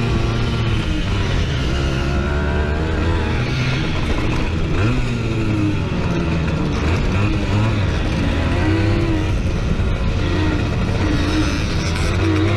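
Simson moped's two-stroke single-cylinder engine racing on a dirt track, heard close up from the rider's onboard camera, its pitch rising and falling again and again as the rider opens and eases the throttle through the turns.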